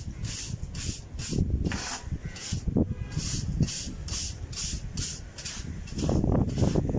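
Stiff bristle brush scrubbing the concrete inner wall of a cement water tank, scraping off caked silt in quick back-and-forth strokes, about three a second, over a low rumble.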